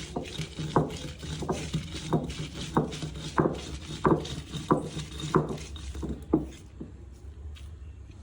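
Grinding on an ammi, a stone roller worked back and forth over a flat stone slab, crushing a chutney coarsely. The strokes come in a steady rhythm of about one and a half a second and stop about six seconds in.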